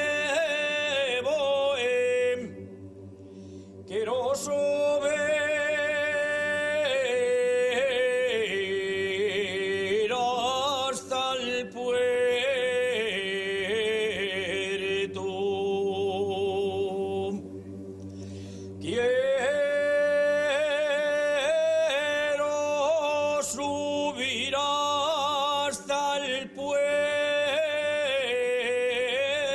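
Men's choir of low voices singing an Asturian folk song unaccompanied. A solo voice carries the melody over the choir's held chords, with two brief drops between phrases.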